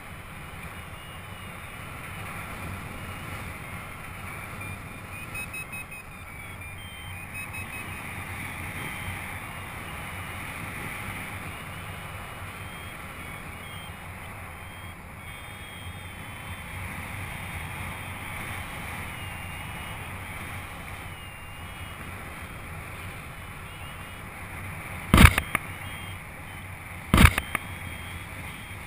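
Airflow rushing steadily over a paraglider pilot's helmet or harness camera microphone in flight. Near the end come two sharp knocks about two seconds apart.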